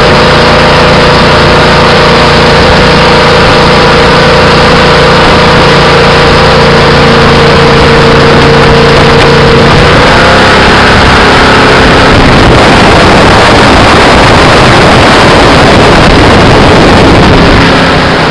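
Loud drone of a jet boat under way, its engine running at a steady pitch over the rush of water and wind. About halfway through, the steady engine note breaks up into a rougher, noisier rush.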